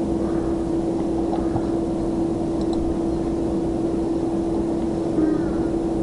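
Steady hum held at one pitch over a constant background hiss, with a few faint ticks.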